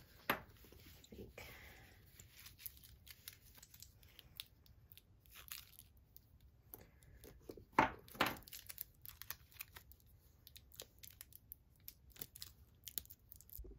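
Handling noise from a woven fabric bag strap and its gold metal hardware: scattered light clicks and brief rustles as the strap is turned over and its clasp and slider are fiddled with, with two louder clicks a little past halfway.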